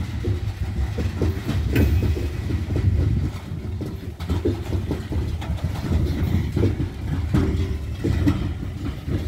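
CSX coal train of steel hopper cars rolling past close by: a heavy, steady low rumble of wheels on rail with irregular clickety-clack over the rail joints, and a short high squeal about two seconds in.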